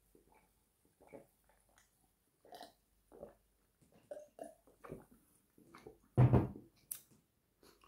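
Faint gulps as a man drinks from a glass of orange juice, then one loud, low burp about six seconds in.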